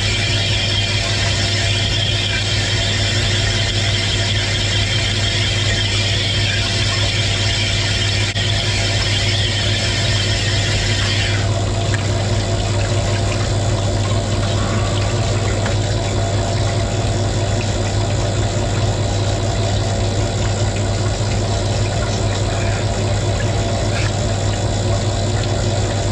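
Cylinder honing machine running with honing oil flooding the bore, in the final stage of honing the bore to size. The hiss of the honing stones working in the bore stops sharply about eleven seconds in, leaving the steady hum of the machine and its oil pump.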